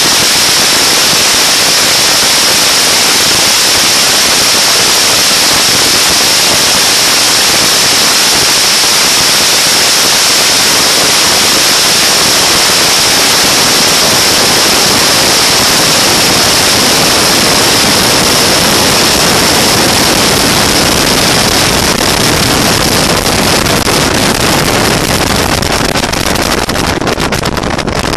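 Loud, steady wind rush over the camera microphone on an open bass boat running at top speed, with the boat's motor and hull noise buried in it. The roar eases toward the end as the boat slows down.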